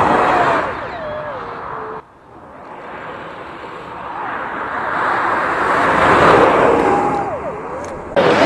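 Kreisel RE X1 electric rally car on snow: the electric motor's whine slides down and up in pitch over the hiss of tyres and thrown snow. The sound cuts off abruptly about two seconds in, then swells again as the car comes close, loudest about six seconds in.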